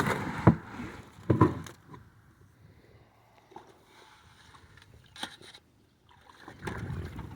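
Stone being worked in around a drainage pipe: a few short scrapes and crunches in the first second and a half, a couple of faint clicks later, and a soft rustle near the end.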